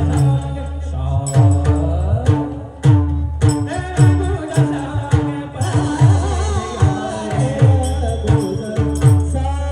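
Abhang devotional singing accompanied by a pakhawaj drum, whose deep bass strokes slide down in pitch, over a steady held note. The drum drops out near the end.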